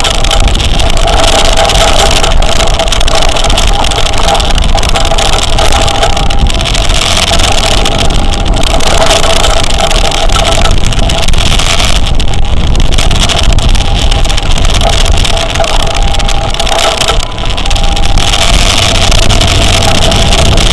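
Two-tone German-style emergency siren, switching steadily back and forth between a higher and a lower note, over rushing wind and the engine and road noise of a vehicle on the move.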